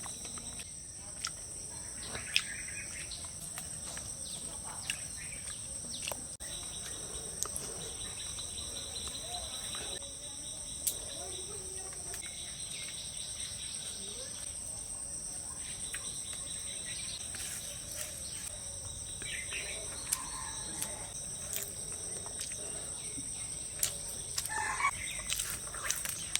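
Steady high-pitched drone of crickets or other insects, with a pulsing trill that starts and stops several times. There are a few sharp clicks, and chickens cluck briefly near the end.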